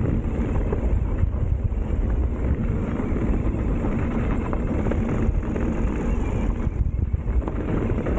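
Wind rushing over the microphone while a mountain bike rolls fast along a rocky dirt trail, with tyre noise and scattered small knocks from the trail.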